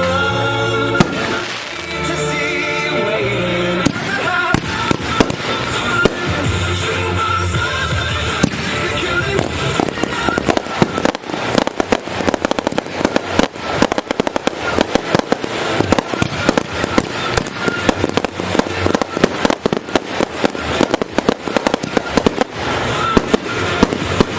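Fireworks going off over music. Scattered bangs come first; from about ten seconds in there is a dense run of rapid crackling reports that mostly covers the music.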